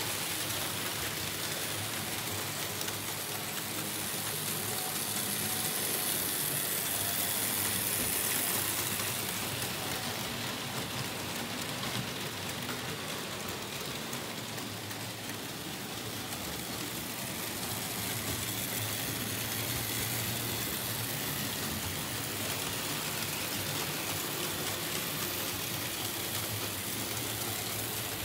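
Märklin H0 model trains rolling over pressed-steel M-track: a steady, dense rattling of metal wheels on metal rails and roadbed, swelling and easing a little as trains pass.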